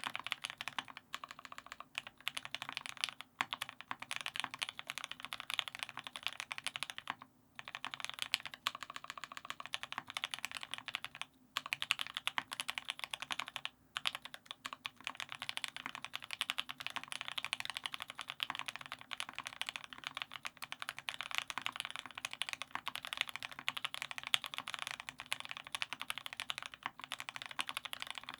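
Fast continuous typing on a custom mechanical keyboard: lubed Tealios V2 linear switches with Cherry black top housings in an aluminium-plate TX84, giving a dense run of keystrokes with a few brief pauses.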